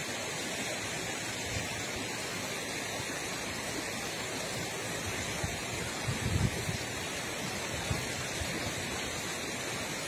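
River water rushing over rocks in shallow rapids, a steady, unbroken rush, with a few brief low bumps about six seconds in.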